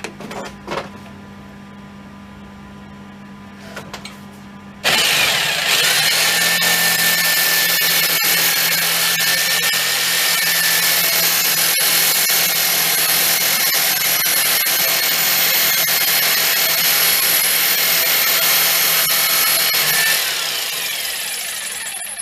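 A few clicks and knocks of handling, then an electric power tool starts abruptly about five seconds in and runs loud and steady with a high whine for about fifteen seconds before winding down near the end.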